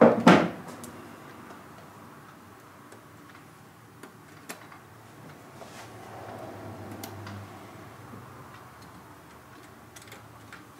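Rubber boot on a skid steer steering lever being pressed and worked onto its metal bracket by hand: a brief loud sound at the very start, then light scattered clicks and soft rubbing.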